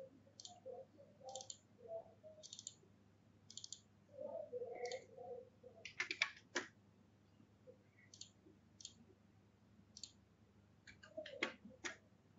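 Faint, irregular clicks of a computer mouse and keyboard. A quick run of several clicks comes about six seconds in, and another near the end.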